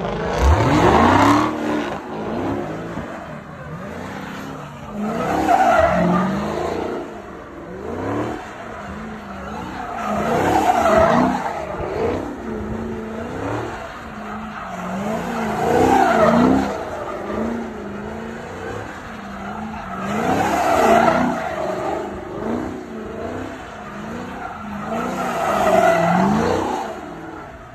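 Dodge Charger V8 revving hard while spinning donuts, tyres squealing. The engine pitch rises and falls continuously, and the sound swells about every five seconds, six times, as the car sweeps past.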